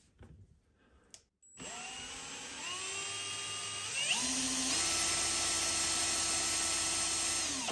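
Power drill spinning a stepper motor that is wired as a generator. The motor whine starts about a second and a half in, climbs in pitch in a few steps as the trigger is squeezed harder, holds steady at speed, and stops at the very end.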